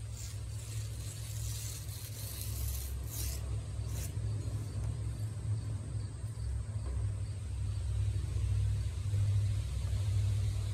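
A steady low rumble that grows louder in the last few seconds, with a few brief rustling handling noises in the first four seconds.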